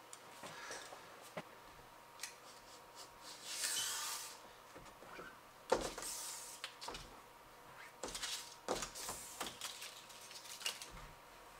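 Faint handling noises of hands working over a flexible solar panel on a camper roof: scattered light clicks and knocks, with three short hissy scrapes or rubs, the first about three and a half seconds in, the others about six and eight seconds in.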